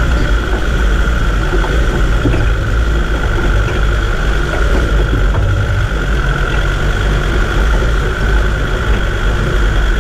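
Land Rover Discovery 2 driving slowly along a rough dirt track: a steady low engine drone with tyres crunching over gravel, and a constant thin whine above it.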